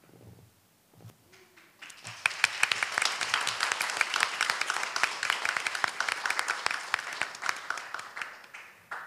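Audience applauding: a few scattered claps at first, then steady applause from about two seconds in that dies away near the end.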